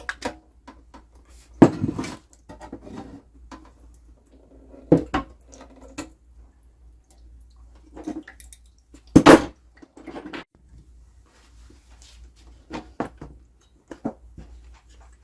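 Irregular metallic knocks, clinks and clatter of metal espresso-machine parts and tools being handled while a Gaggia Classic is dismantled and its boiler removed. There is a loud clank about nine seconds in and another near two seconds in.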